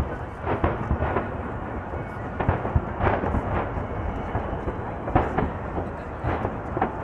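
Aerial fireworks shells bursting in quick succession, a continuous rolling rumble of booms with sharper bangs standing out several times.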